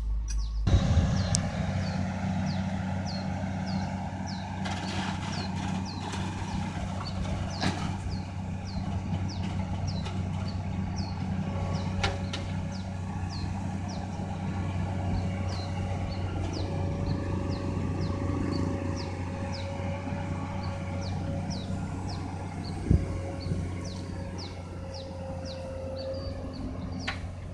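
Diesel engines of an excavator and dump truck running steadily, with a steady whine joining about eleven seconds in and dropping out near the end, and a couple of sharp knocks. A bird chirps repeatedly, about once a second.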